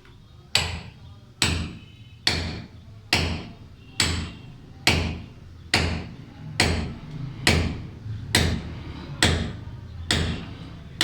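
Hammer blows on a steel chisel, chipping away a masonry corner: sharp metallic strikes at a steady pace, a little more than one a second, each with a brief ring.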